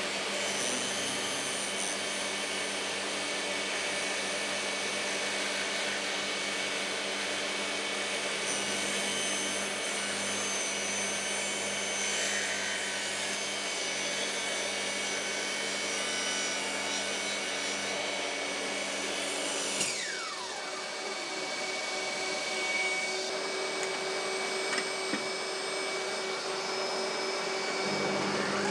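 Bosch GTS 10XC table saw running while its blade is raised up through a blank zero-clearance insert to cut the blade slot. About twenty seconds in the motor is switched off and winds down in a falling whine, while a steadier machine noise carries on.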